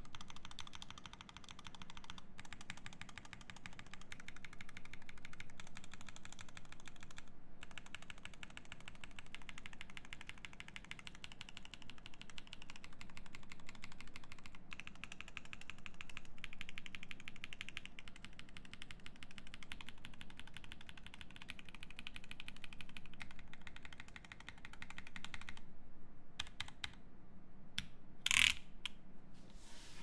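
Fast typing on a Keycult No.1/65 mechanical keyboard with lubed Pomcicle switches, a polycarbonate plate and GMK keycaps: a dense, even clatter of keystrokes. The clatter stops about four seconds before the end, followed by a few single key presses, the last of them the loudest.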